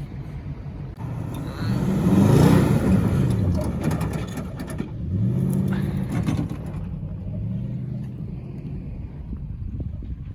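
A vehicle engine revving up and down three times, pitch climbing and falling each time, with a rushing noise during the two biggest revs, while it is driven off-road in thick snow.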